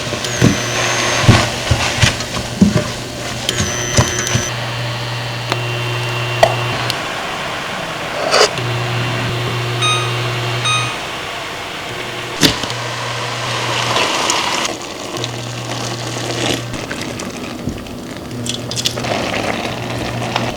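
Kitchen cooking sounds: a low electric hum from an appliance cuts in and out every few seconds, over utensils clinking and knocking. A pair of short electronic beeps sounds about ten seconds in.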